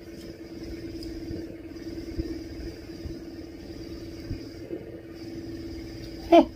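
Steady low machine hum in the room with a faint high hiss above it. A few soft clicks come from people eating and handling their food, and a short loud burst of voice comes right at the end.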